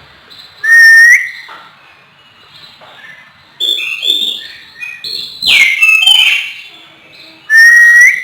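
Oriental magpie-robin (kacer) singing. A loud whistled note rises at its end about a second in, a quick jumble of varied chirps and whistles follows in the middle, and the same rising whistle comes again near the end.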